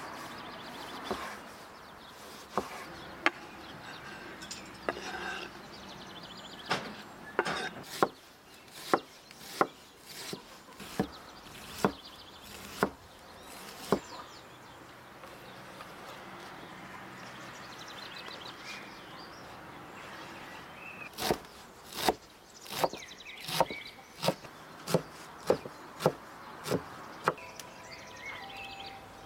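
Wide-bladed kitchen knife chopping on a thick wooden cutting board: sharp knocks about once a second as tomatoes are diced, a quieter stretch, then a quicker run of chops near the end.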